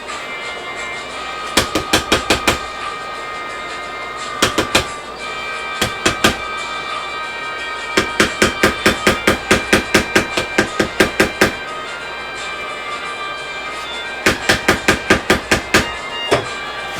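Runs of rapid hammer strikes on wardrobe panels, about four or five blows a second: short runs of a few blows, a long run of about fifteen in the middle, and another run near the end. Background music plays throughout.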